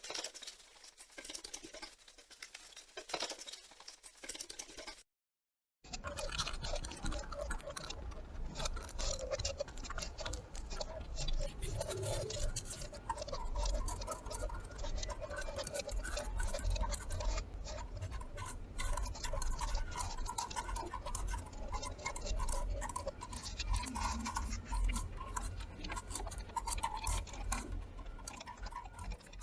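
An insect beating its wings: a dry, scratchy flutter of fine rapid clicks. It breaks off briefly about five seconds in, then comes back denser, with a faint whirring hum under it.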